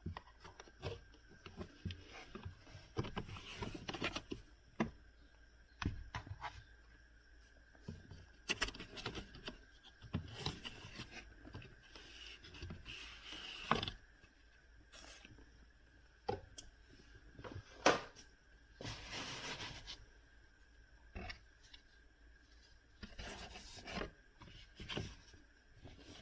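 Hands working on a car's cabin air filter and its plastic housing: scattered clicks and knocks with stretches of rubbing and scraping, one sharp click a little before the two-thirds mark.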